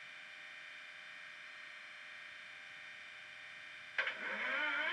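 Class 37 diesel engine sound from a model locomotive's DCC sound decoder, played through a small speaker in the fuel tanks: a quiet, steady engine hum. About four seconds in there is a sudden click, and the engine note climbs in pitch and grows much louder.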